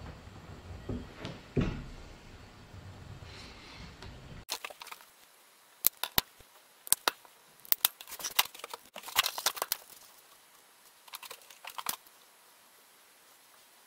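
A couple of light knocks from a lever-type shock absorber being handled in a bench vise, then crisp crackling and snapping of stiff paper as a small paper template is handled and shaped, in quick clusters of sharp clicks that stop about a second before the end.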